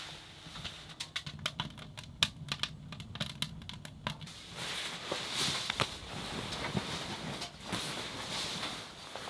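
A quick run of light, sharp clicks and taps for about three seconds, then a rustling, crinkling sound with scattered ticks, as of gear or fabric being handled.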